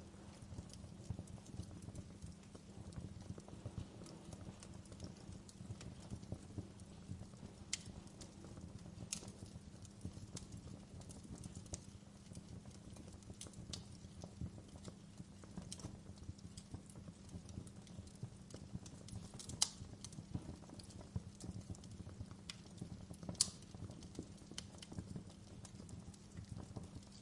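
Wood fire crackling in a fireplace: irregular snaps and pops over a low steady rumble of the flames, with two louder pops a little past the middle and near the end.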